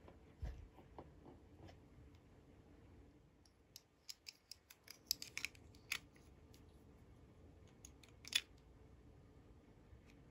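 Small plastic toy dishes and a miniature plastic dish rack clicking and tapping as they are handled, with a quick run of clicks in the middle and one sharper click later on.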